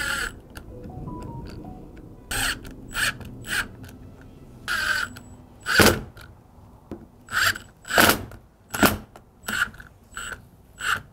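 Hand driver tightening the small T20 Torx screws that hold the steering wheel's bottom button panel, making a series of short clicking strokes about half a second apart, with a couple of sharper knocks.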